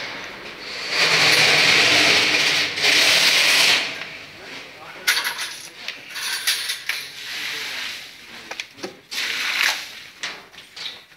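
Loud hissing noise for about three seconds, broken once, then scattered sharp metallic clinks and clanks of steel parts being handled during assembly of a steel grain dryer.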